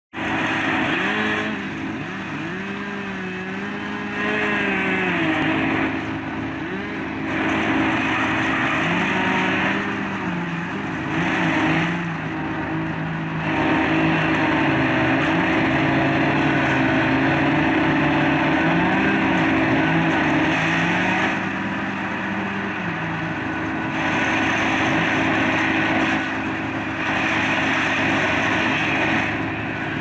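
Chainsaws cutting up felled tree trunks, their engine pitch dipping and rising repeatedly under load, over the steady running of a trailer-mounted wood chipper's engine. Louder stretches of harsh noise come and go every few seconds.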